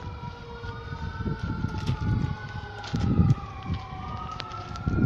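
Emergency vehicle siren wailing, its pitch sliding slowly up and down, with two wails overlapping. Low thumps on the microphone, loudest about three seconds in and again near the end.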